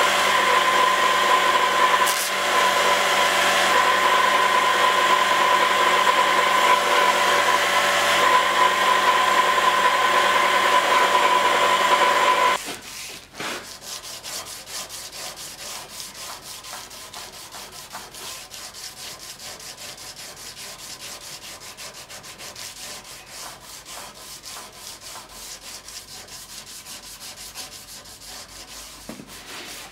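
A belt grinder runs with a steady whine as a 5160 steel sword blade is held to the belt. About a third of the way in it stops abruptly, and the blade is then sanded by hand with sandpaper in quick, repeated back-and-forth rubbing strokes.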